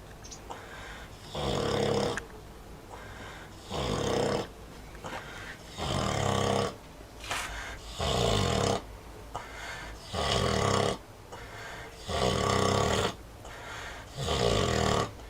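A Vietnamese pot-bellied sow snoring in her sleep: a loud snore about every two seconds, seven in all, with quieter breaths between them.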